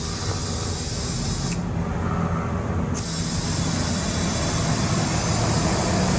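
Compressed air hissing through a shop air chuck into a car tire's valve stem as the underinflated tire is filled. The hiss cuts off about a second and a half in and starts again about a second and a half later, as the filling is paused to check the gauge.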